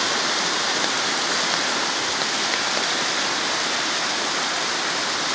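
Creek in full flood, running at about 2200 cfs near its peak: a steady, dense rush of fast brown floodwater that does not let up.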